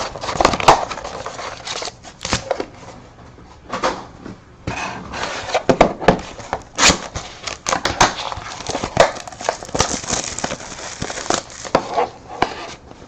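Plastic wrapping on trading-card packs crinkling and tearing as it is cut open with scissors: an irregular run of sharp crackles and rustles.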